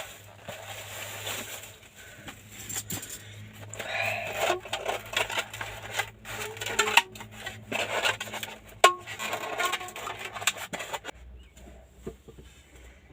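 Biryani being spooned out of its container onto a plate: scraping, rustling and small clicks of the spoon, with two sharp knocks of the spoon against the plate a couple of seconds apart, the second one ringing briefly.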